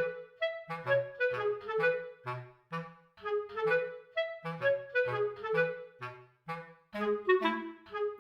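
Background music: a melody of short, detached notes over a regular bass line.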